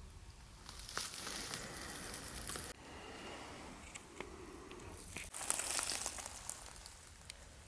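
Faint rustling and crinkling, louder in two stretches, about a second in and again past the five-second mark, with a few small clicks.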